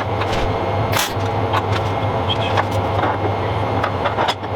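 Arc welding on steel plate: a steady crackle over a low hum, with a few sharp pops.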